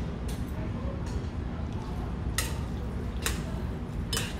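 Chopsticks mixing sauce-coated bibim-guksu noodles in a metal bowl: three short wet squishes and clicks in the second half, over a steady low room hum.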